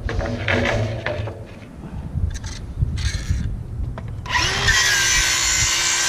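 Work sounds of a slate roof repair: irregular knocks and scraping, then about four seconds in a handheld power tool starts running steadily with a high, hissing whine.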